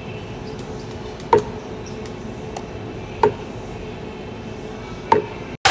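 Scoop clinking against a tub of vanilla bean powder, three short ringing taps about two seconds apart, over a steady background hum.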